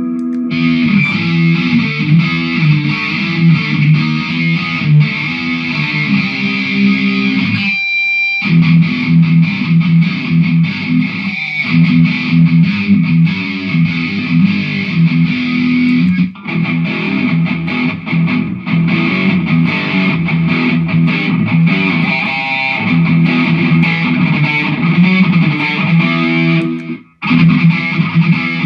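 Electric guitar played through a Mooer GE150 multi-effects unit, riffing continuously. The playing breaks off briefly about eight seconds in and again near the end.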